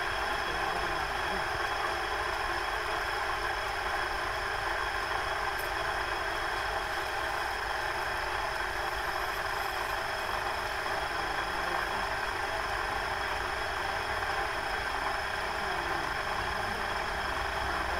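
Motorised potter's wheel running at a steady speed: an even motor hum with a thin, constant high whine, unchanging while wet clay is shaped on it.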